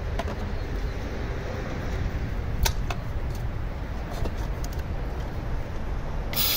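A short hiss of aerosol parts cleaner sprayed through its straw into a fuel-injector hole near the end, over a steady low background rumble. A few light clicks come earlier.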